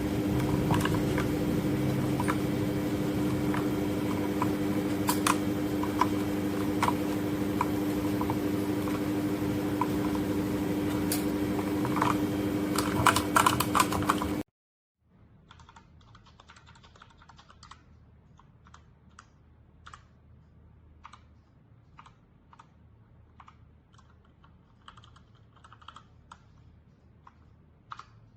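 Keys of a Nubwo Termination X30 mechanical keyboard being typed on. For the first half the typing is loud and rapid over a steady electrical hum; after an abrupt cut about halfway, quieter, sparser key clicks follow.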